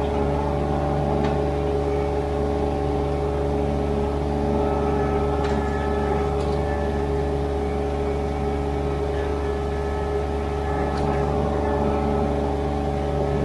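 Ditch Witch SK800 mini skid steer's engine running at a steady speed, with a few faint clicks over it.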